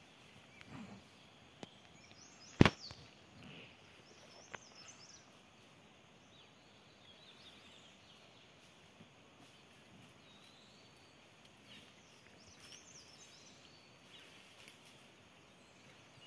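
Quiet rural outdoor background with faint warbling birdsong twice. A single sharp crack about two and a half seconds in, the loudest sound, and a few soft clicks and rustles.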